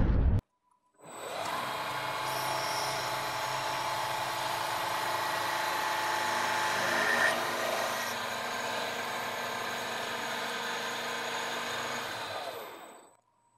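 The tail of a loud explosion sound effect cuts off abruptly at the start. About a second later, a milling machine's fly cutter, carrying a freshly heat-treated high-speed steel tool bit, spins up and takes a steady face cut across a metal plate. The cutting fades out near the end.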